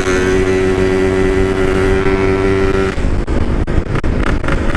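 Yamaha RX-King's two-stroke single-cylinder engine running steadily at a constant throttle, through a 'standart belek' side-outlet aftermarket exhaust. About three seconds in, the steady engine note drops away, leaving wind and road noise with a few knocks.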